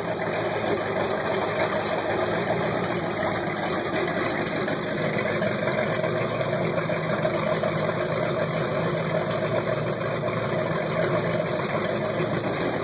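Twin big-block Chevrolet 454 V8 MerCruiser sterndrive engines idling steadily through through-transom exhausts, running on freshly fitted Holley carburetors that are being set up.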